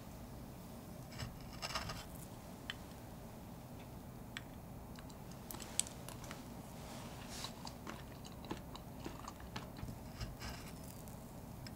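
Metal spoon cutting down through a blueberry mousse cake and its crumbly Oreo cookie base, making scattered soft crunches and small clicks against the slate plate.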